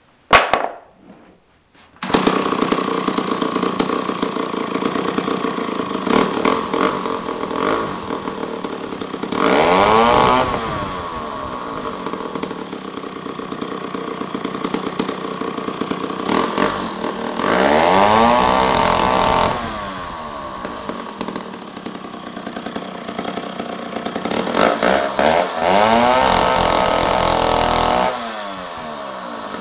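McCulloch 1-40 chainsaw's 80 cc two-stroke engine starting: a brief sputter just after the start, then it catches about two seconds in and runs, revved up and back down three times.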